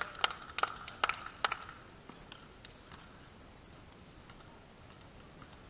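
Four or five sharp smacks in the first second and a half, with faint voices under them, then a quiet, steady outdoor background.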